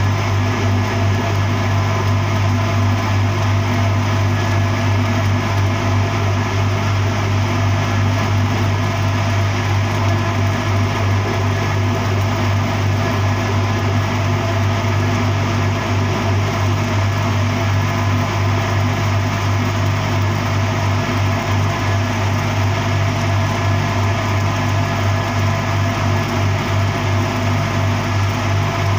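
Arc welding on a large-diameter TKY pipe joint: a steady, unbroken electric buzz with a strong low hum and a hiss of arc crackle, holding even throughout.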